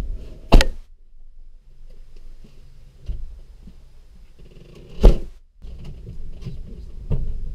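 A vehicle's rear liftgate slams shut with a loud thud about half a second in. A second loud door thud comes about five seconds in, with low rumbling and handling noise around both.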